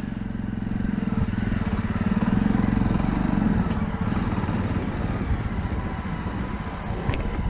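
Jawa Perak's single-cylinder engine running as the motorcycle is ridden, getting louder about two seconds in and easing off again after about three and a half seconds.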